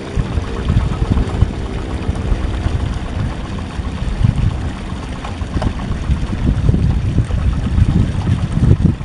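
Yanmar two-wheel hand tractor's single-cylinder diesel engine running steadily while it drags a leveling board through a flooded paddy.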